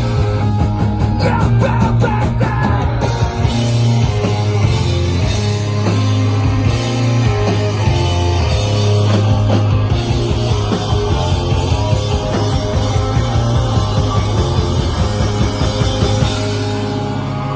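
Punk rock band playing live and loud: electric guitars, bass guitar and drums, with a singer at the microphone.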